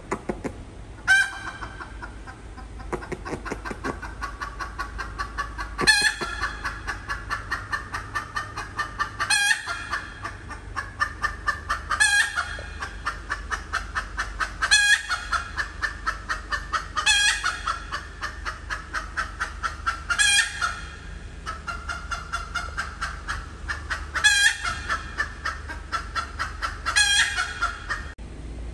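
Hen cackling: runs of rapid clucks, each broken by a loud, higher squawk about every three seconds, nine times in all. This is the pattern of a hen's egg song after laying.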